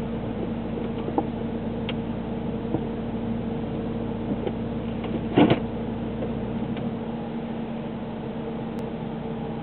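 Diesel freight locomotive running with a steady pitched hum over a low rumble; the rumble drops away about seven seconds in. A single loud knock comes at about five and a half seconds.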